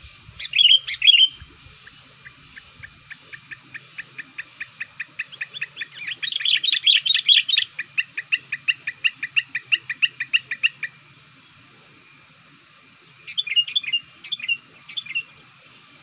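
Sooty-headed bulbul calling: a brief burst of chirps, then a long run of quick repeated notes, about four or five a second, growing louder in the middle before stopping. A few more chirps come near the end.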